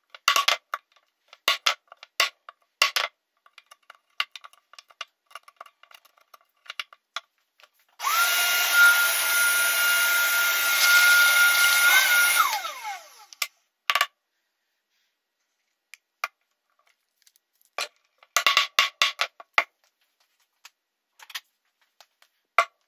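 Light knocks and taps of hand tools and wood on a wooden workbench, then a small motor-driven tool runs for about five seconds with a steady high whine and winds down, its pitch falling as it stops. A second short cluster of knocks follows later.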